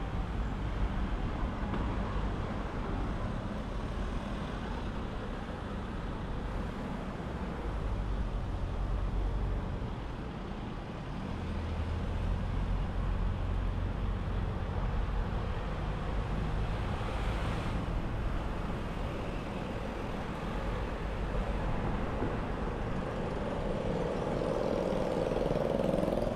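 Steady rumble of road traffic on a city street, with vehicles running past.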